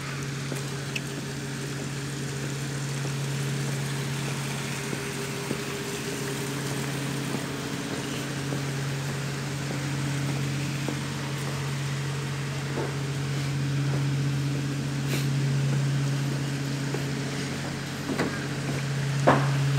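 An engine running steadily, a low even hum that swells slightly in level, with a few short knocks near the end.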